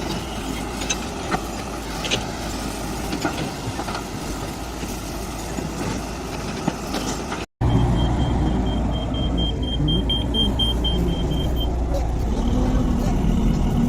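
Machinery running steadily with scattered clicks and knocks. About seven and a half seconds in the sound cuts off abruptly and returns as a louder low drone, with a fast series of short high beeps for about three seconds.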